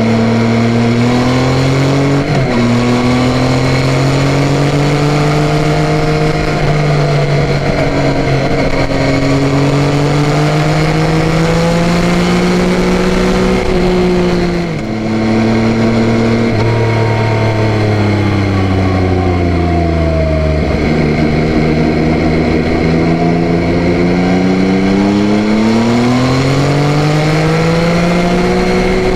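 Yamaha Tracer 9's 890 cc inline three-cylinder engine pulling through the gears, its pitch climbing and then dropping back at each upshift. About halfway through the throttle closes and the revs fall away for several seconds before the engine pulls hard again.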